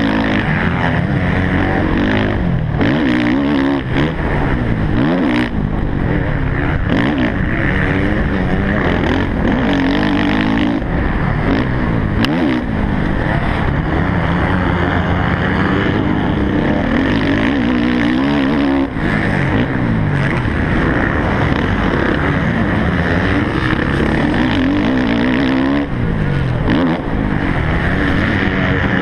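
Motocross bike engine at racing speed, revving up and dropping back over and over as the rider works the throttle and gears through the course.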